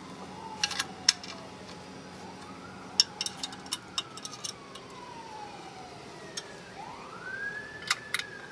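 Sharp clicks and taps of an Allen key on a small bolt as a brake caliper cover is screwed down by hand, coming in three bunches. Behind them a distant siren wails, twice rising and then slowly falling.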